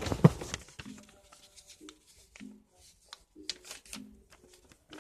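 Paper being torn and handled: a short tearing rip right at the start, then scattered light rustles and taps.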